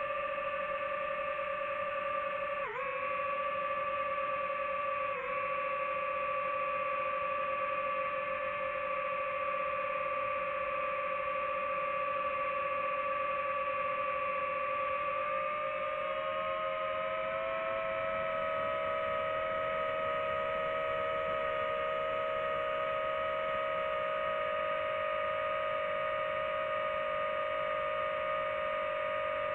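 DJI multirotor drone's electric motors and propellers whining steadily in flight, one held pitch with overtones. The pitch dips briefly twice a few seconds in, and about halfway through it rises slightly and splits into two close pitches as the motors run at different speeds.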